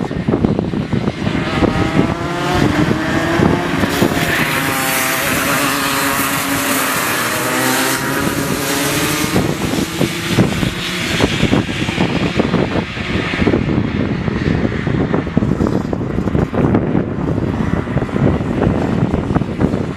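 Racing kart engines running around the track, their pitch rising and falling as they accelerate and back off, loudest in the first half. Wind buffets the microphone throughout.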